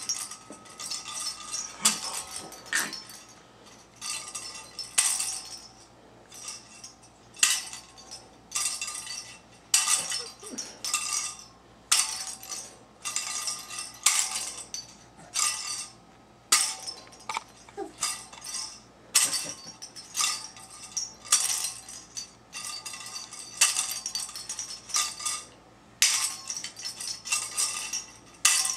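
Small toy rattle ball shaken in short, irregular bursts: sharp clinking rattles roughly once a second.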